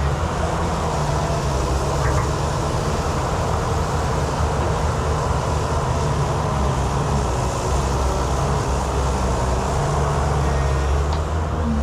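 Excavator engine running steadily, a continuous low hum with no break or change in pitch.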